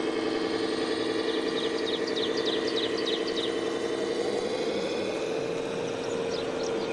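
A steady engine-like drone that shifts a little in pitch partway through, with a quick run of high chirps, about four a second, early on.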